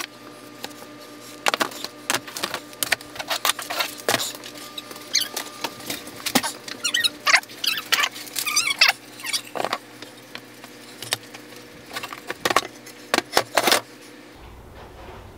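Wooden slats and finger-jointed boards clacking and knocking against each other and the tabletop as they are handled and laid out: an irregular run of sharp clicks and knocks.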